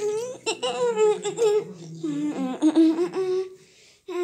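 A person laughing in a high voice, in two runs of quick repeated bursts, the second dying away shortly before the end.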